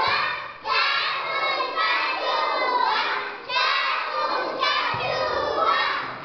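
A class of young children singing and shouting a rhyme together, many loud overlapping voices in phrases broken by short pauses.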